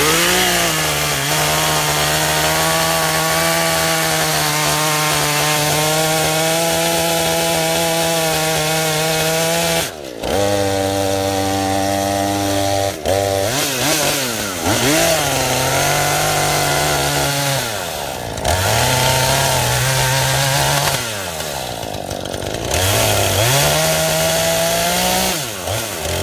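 Two-stroke gas chainsaw running at full throttle as it cuts through a felled tree trunk, held high for about ten seconds. It then drops back toward idle and revs up again three or so times between cuts.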